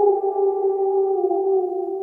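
Wolf howling: one long held note, its pitch sagging slightly as it grows fainter.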